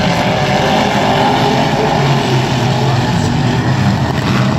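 Engines of vintage dirt-track race cars running as a pack circles the oval, a steady loud drone with engine notes that shift in pitch as the cars pass.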